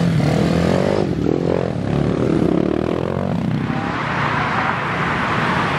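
Dirt-bike engines running close by, with the pitch rising as one revs up about a second in; from about three and a half seconds a steady hiss takes over.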